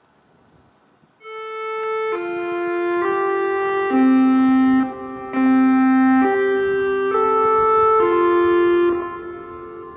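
Campus outdoor emergency alert speakers playing an electronic chime melody: sustained notes stepping up and down in pitch about once a second, starting about a second in and dying away near the end. It is the attention tone that comes before the spoken test announcement.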